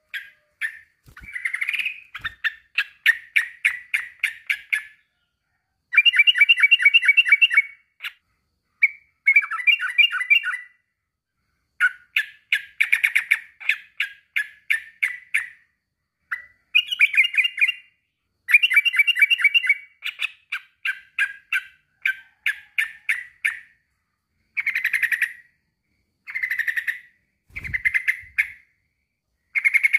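Male yellow-vented bulbul (trucukan) singing a rival-calling song: runs of quick repeated notes, each lasting a second or two, with short pauses between.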